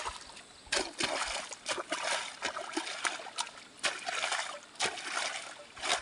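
Muddy water splashing and sloshing in a flooded paddy field as a man wades and works the mud by hand, with several sharp wet smacks at irregular intervals.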